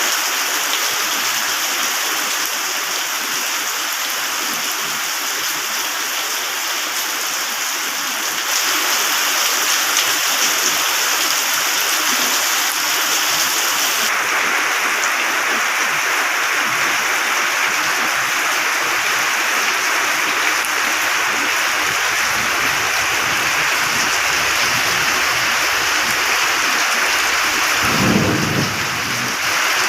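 Heavy rain with a steady hiss that shifts abruptly in tone twice in the first half. Low thunder rumbles through the second half and swells briefly near the end.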